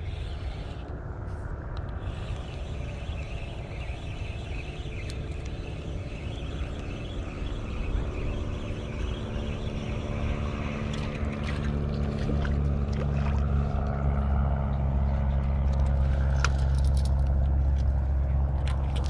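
A motor engine's low, steady hum that grows louder from about ten seconds in, with a few sharp clicks near the end.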